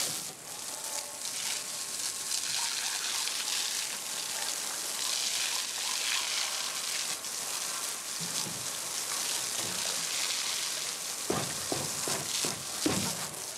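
Garden hose spraying a jet of water onto a concrete pen floor and a pig: a steady spattering hiss, with a few short knocks near the end.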